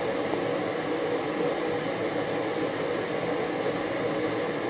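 Elderberry jam boiling hard in a steel pan, a fierce rolling boil with steady bubbling and hiss, as it is boiled toward its setting point.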